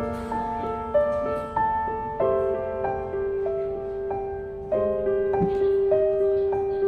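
Slow instrumental background music: a melody of single notes over a long held note.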